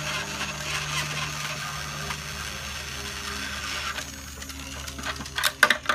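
A toy battery-powered screwdriver whirring steadily for about four seconds as it drives a screw into a plastic bulldozer kit, then stopping, with a few sharp clicks of plastic parts near the end.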